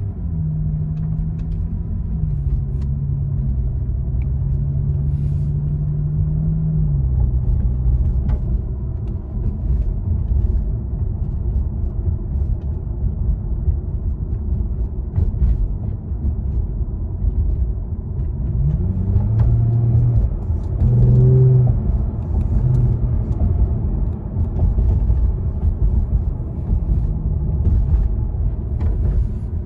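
Lexus GS 350's 3.5-litre V6 with a Borla S-Type axle-back exhaust, heard from inside the cabin while driving at low city speeds under about 2,000 rpm: a steady low rumble with road noise. The engine note steps in pitch a few times early on and rises briefly about two-thirds of the way in.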